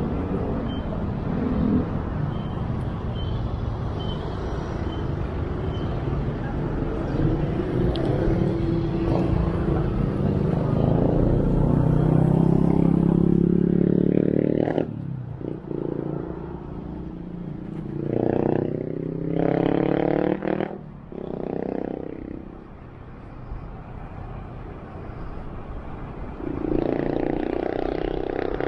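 Motorcycle engine accelerating in traffic, its pitch climbing and then dropping back at each gear change, loudest about halfway in, over a steady rush of road and wind noise.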